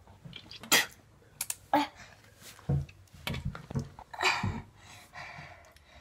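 A boy's sharp breathy nose and mouth noises during a squeeze-bottle saline nasal rinse, blowing and spluttering the rinse water out in a string of short bursts. The loudest comes about three-quarters of a second in.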